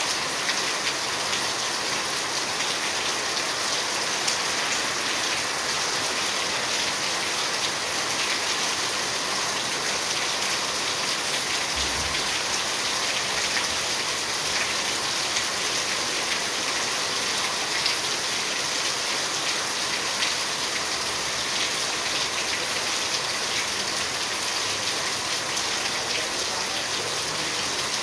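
Steady rain falling, an even hiss with scattered drop ticks. A brief low thump about twelve seconds in.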